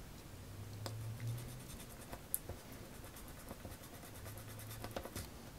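Faint scratching of sandpaper rubbed by hand on plastic, roughening it so glue will bond, with a few small clicks. A low hum comes in briefly twice, about a second in and near the end.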